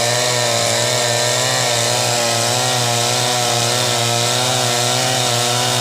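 Chainsaw engine running steadily at high speed, its pitch wavering slightly up and down.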